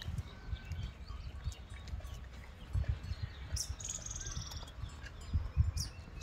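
Small birds chirping, with a quick run of high chirps about four seconds in, over low thumps and rumble that are loudest near the end.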